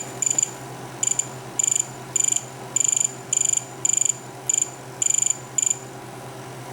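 Radio-control transmitter's electronic beeper sounding short, high-pitched buzzy beeps, about eleven of them roughly twice a second, as its buttons are pressed to set the throttle travel endpoints.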